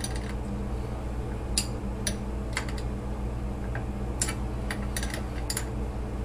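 Open-end wrenches clicking against a brass compression nut and shut-off valve as the nut is snugged down: a few light, irregular metal ticks over a steady low hum.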